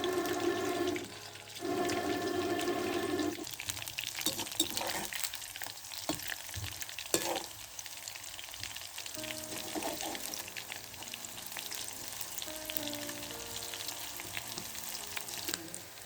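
Food sizzling and crackling in hot oil in a pan, with dense small pops. Background music plays, loudest in the first few seconds.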